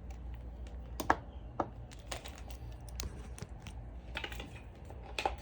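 Irregular light clicks and taps from hands handling a power cable and plastic hardware, over a low steady hum. The sharpest click comes about a second in.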